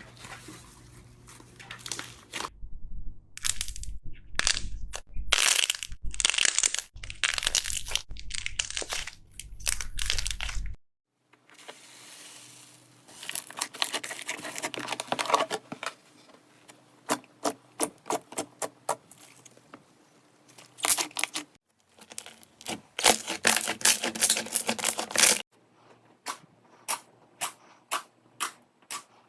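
Slime being squeezed and poked by hand, giving crackly, crinkling squelches and runs of sharp popping clicks, in several short segments that cut off abruptly.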